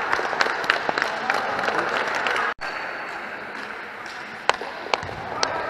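Reverberant sports-hall sound of an indoor futsal game on a wooden floor: irregular sharp knocks from ball kicks and footsteps over a haze of distant voices. The sound cuts out abruptly about two and a half seconds in, then resumes with fewer knocks.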